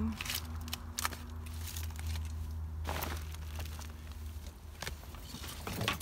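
A few brief rustles and clicks, about four, over a steady low hum.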